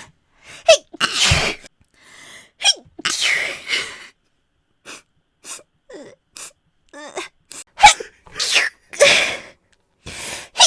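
A woman sneezing again and again, about half a dozen loud sneezes with smaller breaths and sniffs between them, at uneven intervals.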